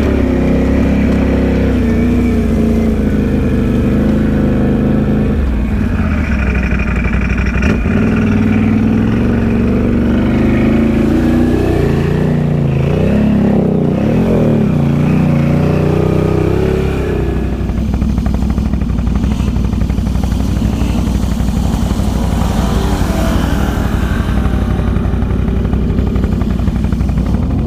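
Can-Am Outlander ATV V-twin engine running and revving up and down as it rides the trail, with the strongest revving about halfway through before it drops back to a lower, steadier run. Near the end a second ATV revs as it comes through the mud-hole water crossing.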